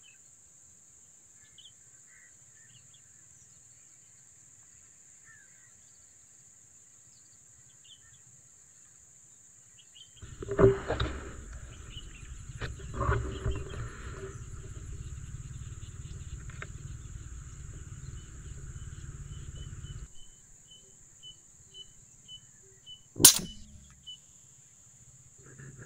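A single sharp crack from a PCP air rifle firing near the end, the loudest sound here. Before it there is a steady high insect whine, then about ten seconds of low rumble with two sharp knocks near its start.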